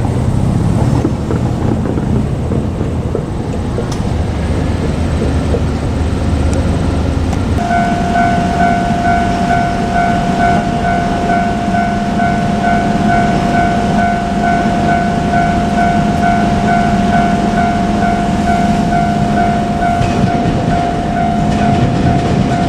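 A train runs by with a low rumble. About seven seconds in, a Japanese level crossing warning bell starts ringing its repeating electronic clang and keeps going over the rumble and hum of the train.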